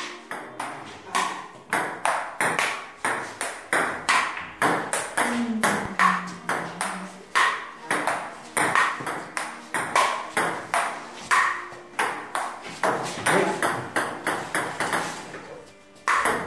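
Table tennis rally: a ping pong ball clicking sharply back and forth off the paddles and the table, about two to three hits a second, stopping just before the end.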